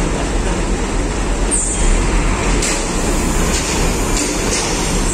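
Steady loud din of diesel engines on a ferry's vehicle deck, with a brief high squeal about a second and a half in and several short hisses after it.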